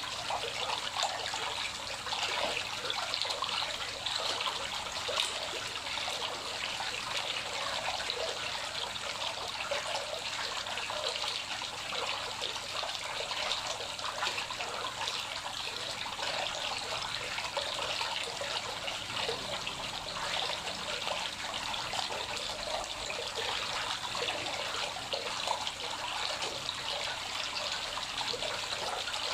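Water pouring into a koi pond, a steady splashing and trickling that churns the pond's surface.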